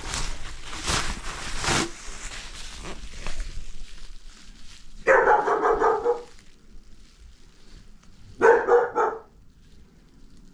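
Bubble wrap crinkling as it is pulled off a metal bar, then a dog barks in two short runs, about five seconds in and again near the end; the barks are the loudest sounds.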